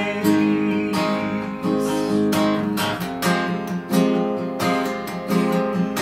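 Steel-string acoustic guitar strummed in a steady rhythm, full chords ringing, with no voice.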